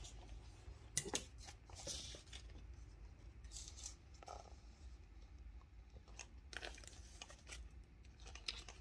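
Faint rustling and flicking of paper banknotes being handled, in short scattered bursts with a few light ticks.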